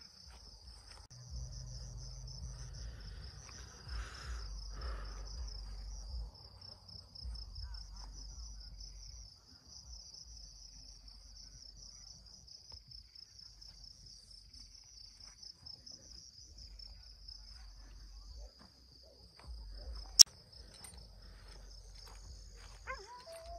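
Insects trilling steadily in a high, rapidly pulsing chorus, like crickets. A low rumble sits under it for the first several seconds, and a single sharp click about twenty seconds in is the loudest sound.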